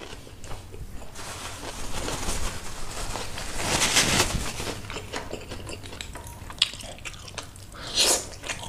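Nose wiped and blown into a paper tissue, a rustling, breathy noise that swells to its loudest about four seconds in. Mouth sounds of eating by hand come near the end.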